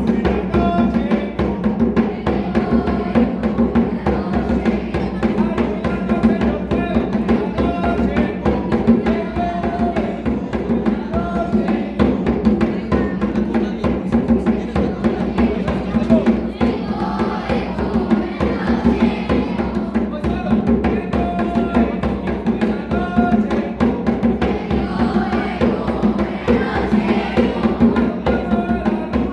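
Music with drums and percussion, playing steadily.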